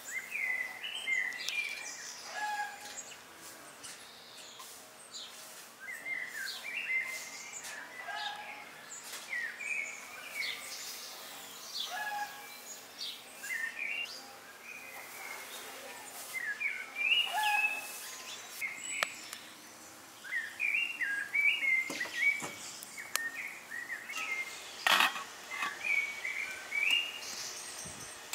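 Songbirds singing, repeated short chirping phrases from several birds. A few short knocks or rustles cut in, the loudest about three-quarters of the way through.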